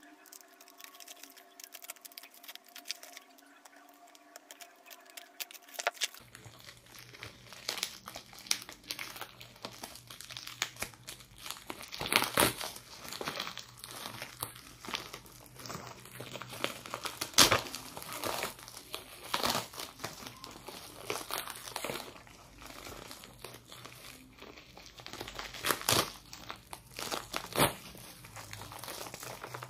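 Plastic shipping mailer and bubble wrap being crinkled and torn open by hand: dense crackling, with several louder sharp crinkles. It starts about six seconds in, after a quieter start.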